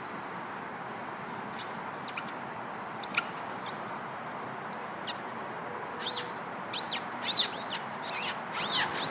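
A run of sharp, high squeaks, several a second and growing louder over the last three seconds: a child's pajamas rubbing on a plastic playground slide on the way down. Steady wind noise lies underneath.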